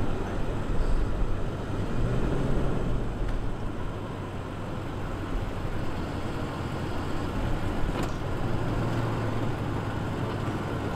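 A motor vehicle running with a steady low rumble and road noise.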